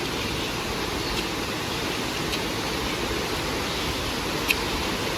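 Steady rushing of a nearby creek, with a few faint sharp clicks about a second apart.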